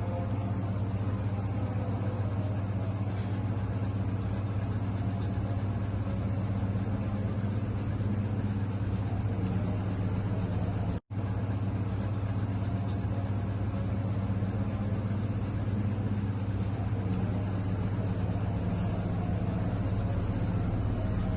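Steady low hum with a constant hiss over it; the sound cuts out for an instant about eleven seconds in.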